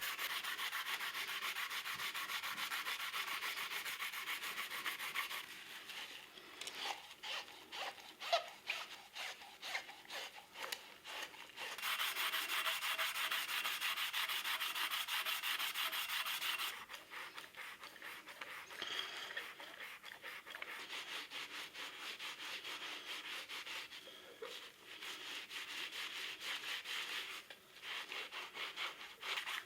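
A sponge with scouring paste scrubbing an old coffee grinder, in stretches of steady rubbing broken by bursts of quick, uneven strokes.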